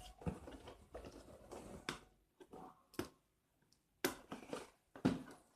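Scattered clicks and rustles of a cardboard package being handled and opened, with a brief lull about halfway through.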